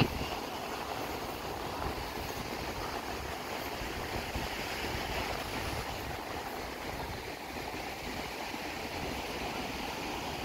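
Ocean surf breaking on a sandy beach, a steady even wash of noise, with a brief knock right at the start.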